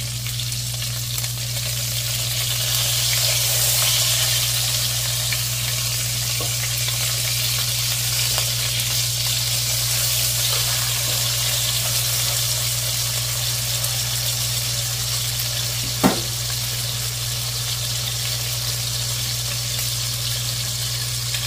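Chicken thighs sizzling as they brown in hot oil in a pot: a steady frying hiss over a steady low hum. A single sharp click about three-quarters of the way through.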